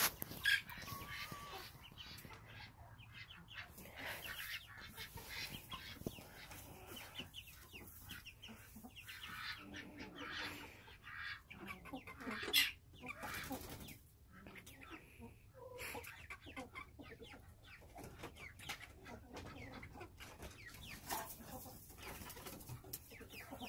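Chickens clucking off and on in the coop, short calls scattered irregularly throughout.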